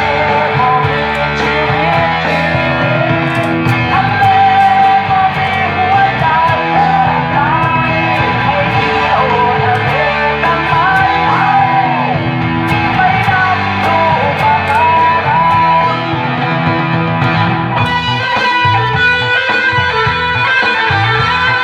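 Guitar-led music: a melody with bending notes over a steady bass line and chords.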